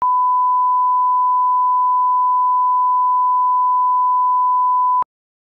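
Steady 1 kHz line-up test tone, the reference tone that goes with colour bars at the head of a broadcast master for setting audio levels. It holds one pitch for about five seconds and cuts off suddenly.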